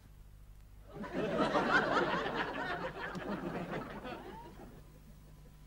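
Studio audience laughing: it starts about a second in, peaks quickly and dies away over a few seconds.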